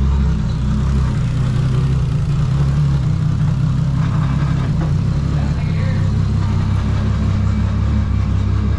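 Turbocharged engine of a Nissan 240SX drift car idling steadily.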